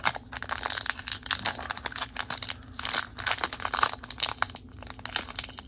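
Foil wrapper of a Pokémon trading-card booster pack crinkling and crackling in the hands as it is worked and torn open, a steady string of irregular crackles. The pack is slow to open.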